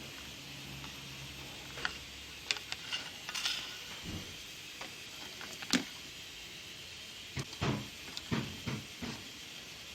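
Irregular small clicks and knocks from parts and tools being handled during work on a stereo, over a faint steady hum.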